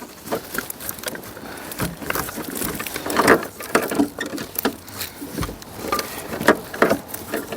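Irregular light clicks and knocks of hands handling the loose door mirror and its wiring on a car door.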